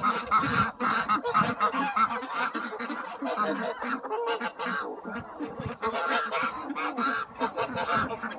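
A mixed flock of domestic ducks, geese and chickens crowding at feed: a steady din of overlapping quacks and goose honks, with many quick clicks of bills pecking at the ground.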